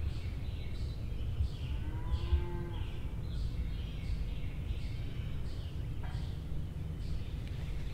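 Songbirds singing in woodland: a steady run of quick, high, down-slurred notes over a low rumble. A short, low, drawn-out tone sounds about two seconds in.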